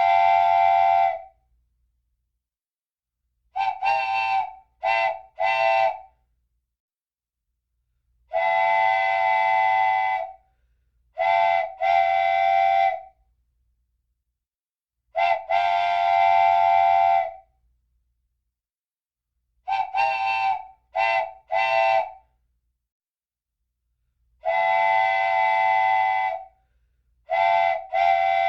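Wooden train whistle sounding a chord of several tones. It is blown in a repeating pattern of long blasts and quick groups of two or three short toots, with silence between them.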